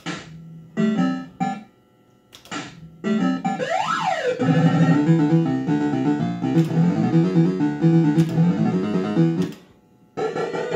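Bell-Fruit Cash Explosion fruit machine sounding its electronic effects: a few short bleeps, a tone that swoops up and back down, then a fast electronic jingle lasting about five seconds.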